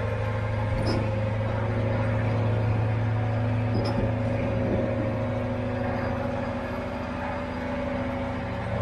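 A vehicle engine running steadily with an even low hum, its pitch holding constant throughout.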